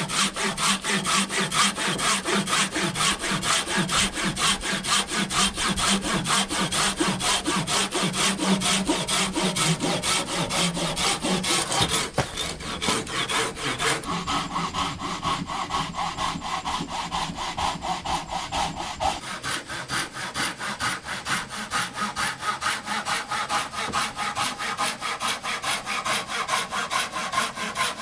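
Hand saw cutting through wood in rapid, even back-and-forth strokes, with a brief break about twelve seconds in before the sawing carries on.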